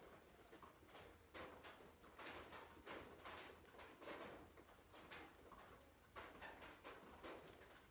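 Near silence: room tone with faint, irregular soft rustles and taps and a steady thin high-pitched whine.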